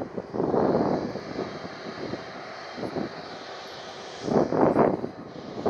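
Airbus Beluga XL's jet engines running at taxi power as the aircraft rolls past: a steady rushing hiss with a faint high whine. Twice, loud gusty rushes of wind buffet the microphone over it.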